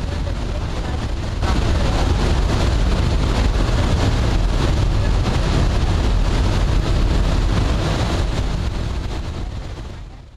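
Churning wake water behind a ship, rushing steadily with a heavy low rumble and wind on the microphone. It grows louder about one and a half seconds in and fades out near the end.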